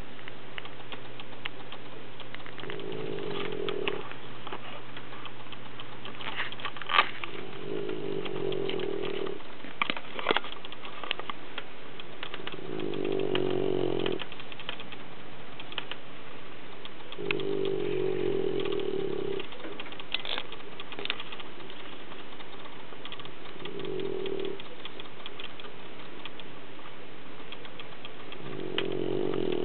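A sleeping puppy snoring, six long snores about five seconds apart, each lasting one to two seconds. A few short clicks fall between the snores, the sharpest about seven seconds in.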